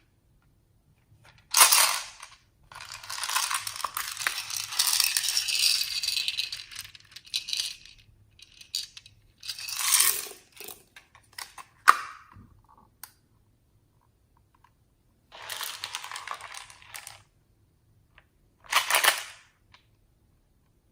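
Several bursts of dry rattling and rustling from small items and packaging being handled for slime mixing, the longest lasting about five seconds, with one sharp click just before the middle.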